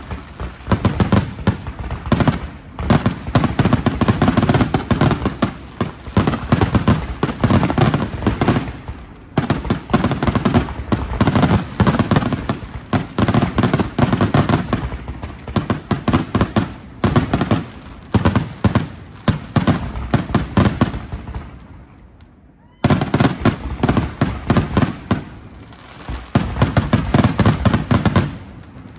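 Aerial firework shells bursting in a rapid, dense barrage of booms and crackles. It dies down briefly about 21 seconds in, then starts up again abruptly.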